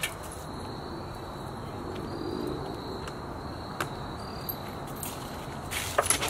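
Crickets chirring steadily in a single high, even tone over low outdoor ambience. A faint click a little before four seconds in and a sharper knock near the end.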